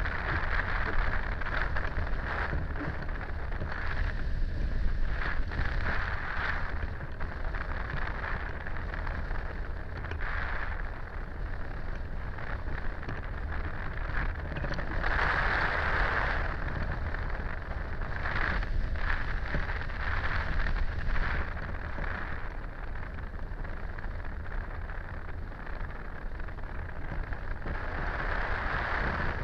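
Wind noise on the microphone of a camera mounted on a hang glider's wing in flight: a steady rush of airflow with a low rumble, swelling and easing in gusts.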